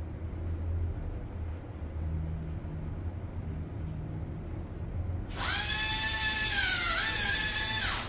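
Dental drill (dentist's handpiece) running for about three seconds from about five seconds in: a high, hissing whine whose pitch sags and wavers briefly near the end, then cuts off abruptly. Before it, only a low steady hum.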